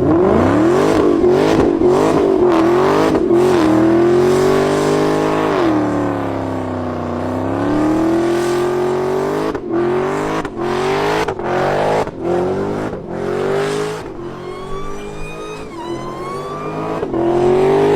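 Car engine revving hard, its pitch climbing and falling several times, with a run of quick dips in the sound between about ten and fourteen seconds in, then climbing again to a higher, thinner whine near the end.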